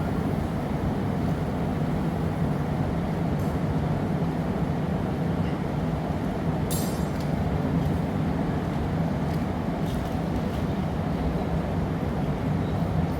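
Steady roar and low hum of a glassblowing studio's gas-fired furnace and glory hole burners. A short sharp clink about seven seconds in, with fainter clicks around it.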